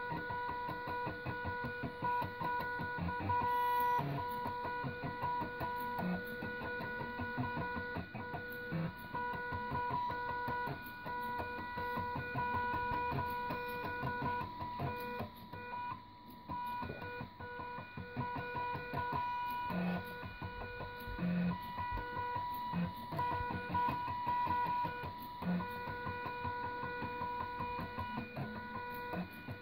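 Stepper motors of salvaged DVD drives driving a pen plotter's axes: a steady pitched buzz with rapid stepping clicks, briefly dropping out now and then as the pen changes direction.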